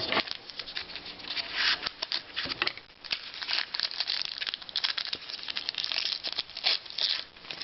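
Crinkling and tearing of a trading-card pack wrapper being opened, with irregular crackles and the light rustle of cards being handled.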